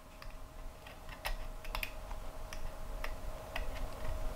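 X-Acto hobby knife blade scoring a copper trace on a printed circuit board: a run of small, sharp, irregular clicks and scratches, a few a second.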